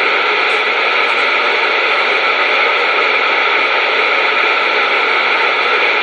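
Steady hiss of static from a CB radio receiver, the channel open with no one transmitting.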